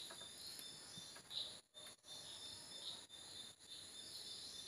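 Faint crickets chirring: a high, steady trill with softer chirps swelling every second or so.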